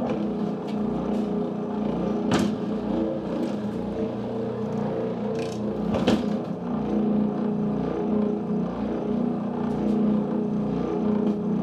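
Benchtop oscillating spindle sander switched on and running steadily, its motor humming with a few light clicks, then switched off near the end. This is a test run after the machine was taken apart, regreased and reassembled.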